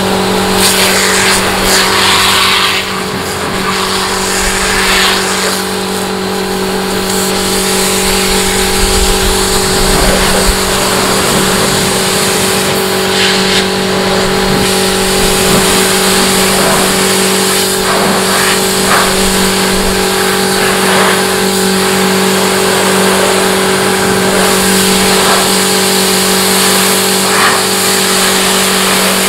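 A motor running with a steady, unchanging hum, under a rushing hiss that swells and fades.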